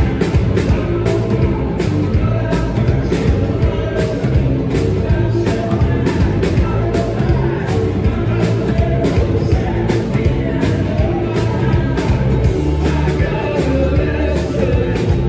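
Live rock band playing loudly, with a steady drumbeat under electric guitar.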